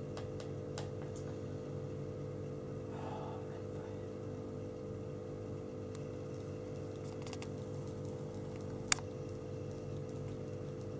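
Scattered clicks of laptop keys and trackpad, with one sharper click about nine seconds in, over a steady low hum.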